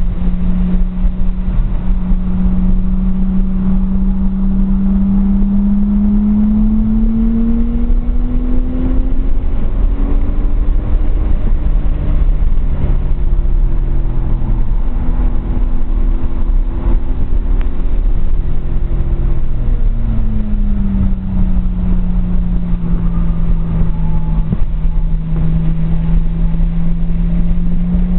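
Nissan RB20DET turbocharged straight-six in a 240SX, heard from inside the cabin while driven hard on track. The engine pitch climbs for about ten seconds, wavers through the middle, falls back at about twenty seconds and climbs again near the end, over a steady low road-and-wind rumble.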